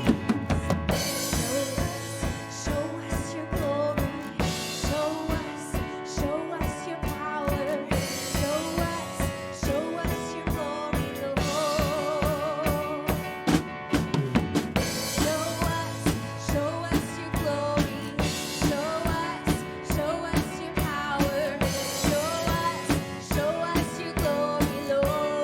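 Live worship band music: a drum kit keeps a steady beat under sustained melody lines and full band accompaniment.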